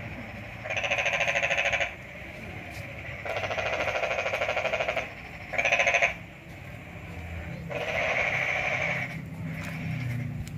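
Homemade battery-powered salt-water welder: the rod buzzing and sizzling each time it touches the salt water in a plastic cap. There are four bursts, each one to two seconds long, with short gaps between them.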